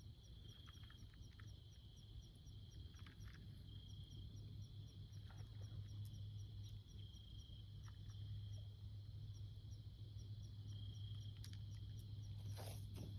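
Faint, steady insect trilling, a high continuous chirr that swells every couple of seconds, over a low steady rumble.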